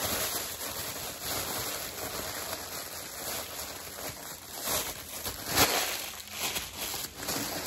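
A bag crinkling and rustling as it is handled, with a steady crackle and a few sharper crackles along the way.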